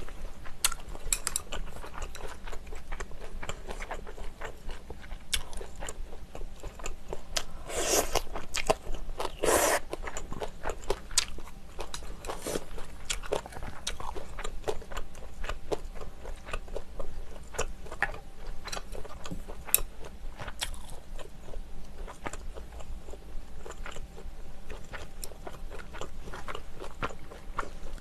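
Close-miked eating: chewing and crunching of spicy sundae gukbap and kimchi, with many small clicks and crackles, a spoon scraping in the bowl, and two louder bursts about eight and nine and a half seconds in.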